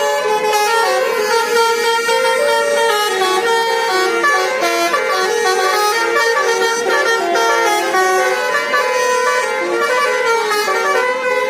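Several Indonesian bus 'telolet' horns, multi-tone musical air horns, playing quick melodic tunes over one another, the notes changing every fraction of a second without a break.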